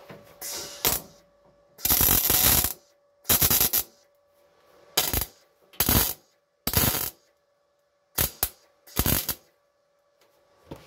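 MIG welder laying a series of tack welds on a steel floor pan, in about eight short bursts of under a second each with pauses between them. The tacks are holding the new floor panel in place before it is welded fully.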